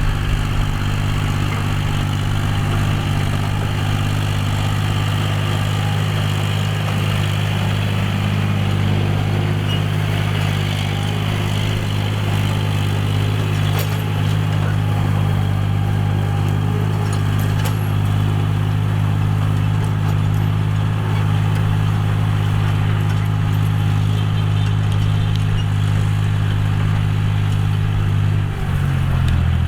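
John Deere 5045D tractor's three-cylinder diesel engine running steadily under load while ploughing. Its note shifts slightly near the end.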